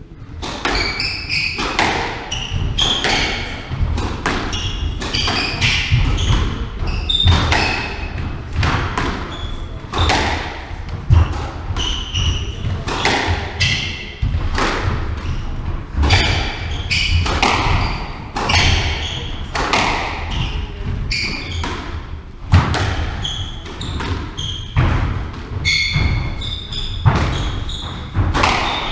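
Squash rally: the hard thud of the ball off the rackets and walls every half second to a second, echoing in the court, with short high squeaks of players' shoes on the wooden floor.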